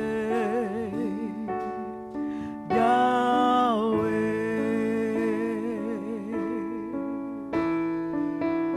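A woman's solo singing voice, long held notes with wide vibrato, over sustained chords on a Roland Juno-DS electronic keyboard.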